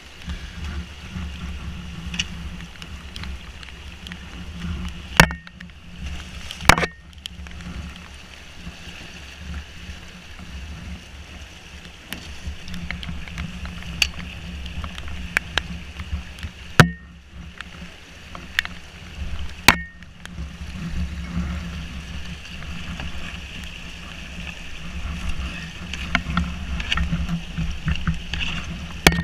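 Rushing water of a shallow rocky rapid around a canoe, with a steady low rush. Four sharp knocks, about two seconds apart early on and again later in the passage, come from the canoe hull and paddle striking rocks.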